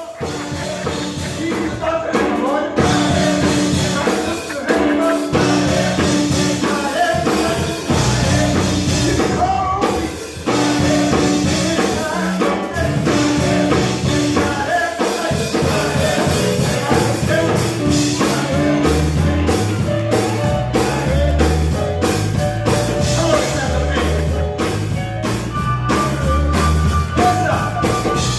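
Live singing with band accompaniment: voices carrying a melody over drums and bass, with a bass line and steady beat coming to the fore about two-thirds of the way through.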